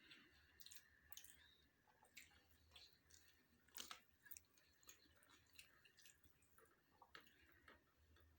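Faint close-up chewing of food, with irregular small mouth clicks and wet smacks, one sharper click about four seconds in.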